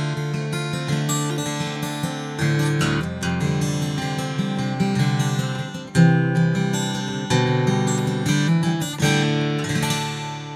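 Acoustic guitar being played, notes and chords ringing, with strong attacks about six, seven and nine seconds in, then dying away near the end. Recorded close on a TechZone Audio Stellar X2 large-diaphragm condenser microphone, with effects added afterwards.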